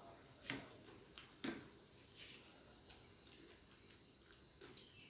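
Quiet eating sounds: a man chewing a mouthful of food, with two soft clicks about half a second and a second and a half in. A steady high-pitched hum runs underneath.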